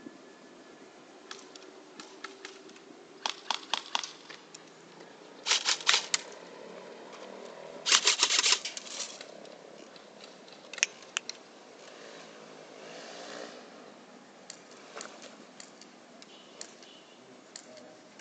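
Airsoft guns firing short bursts of rapid, sharp shots: three bursts in the first half, then scattered single shots.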